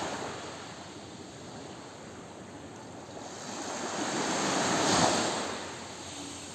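Ocean surf: a wave swells up, breaks about five seconds in, and washes back out.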